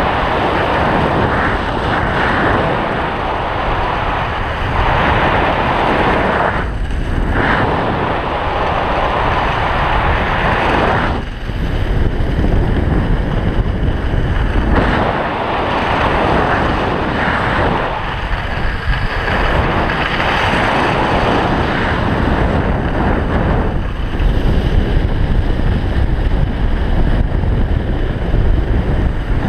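Wind rushing over an action camera's microphone as a skier descends a groomed piste, mixed with the hiss and scrape of skis on packed snow. The rush swells and drops every few seconds.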